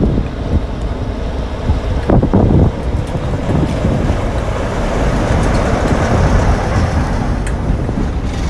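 British Rail Class 47 diesel locomotive moving slowly past at close range with its engine running, a steady low rumble that swells as it goes by. Wind buffets the microphone, with heavy gusts at the start and about two seconds in.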